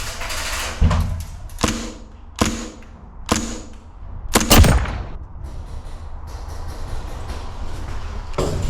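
Tippmann M4 airsoft DMR firing single shots: about five sharp cracks at uneven spacing in the first half, each with a short ringing tail, the loudest a quick double shot near the middle.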